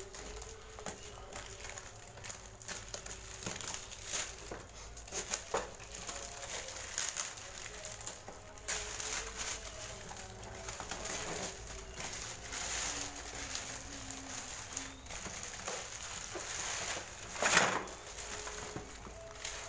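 Black plastic packaging wrap crinkling and rustling as it is cut and pulled off a cardboard box, with the cardboard sliding and knocking. The sound comes in many short, irregular bursts, and the loudest rustle comes near the end.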